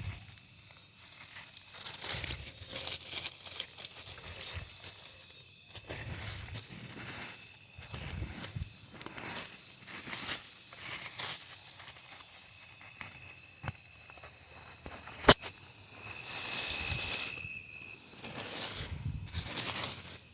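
Leaves and stems rustling in repeated bursts as weeds and vines are pulled by hand. A cricket chirps steadily throughout, about two to three chirps a second, and there is one sharp snap about fifteen seconds in.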